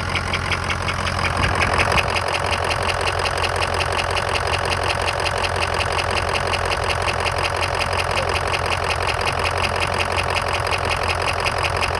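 Ford 6.0 L Power Stroke V8 turbo-diesel idling steadily with an even, rhythmic tick running through it. This is the soft knock the owner hears on the right side near the alternator, which a diesel mechanic traced down toward the injectors.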